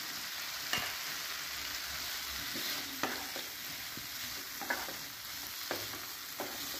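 Spiced masala paste sizzling steadily in hot oil in a frying pan, cooked through with the oil separated, while a wooden spatula stirs fried potato cubes into it, knocking and scraping against the pan a few times.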